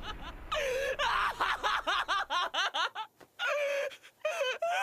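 A young man's hysterical, despairing laughter in rapid strings of 'ha' with short breaks, the anime's Eren laughing in shock as Hannes is eaten.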